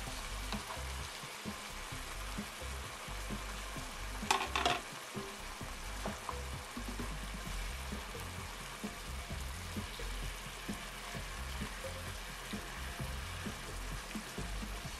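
Spinach, mushrooms, onions and freshly added eggs sizzling in a hot nonstick skillet, with a wooden spatula stirring and scraping the pan. A short clatter about four seconds in.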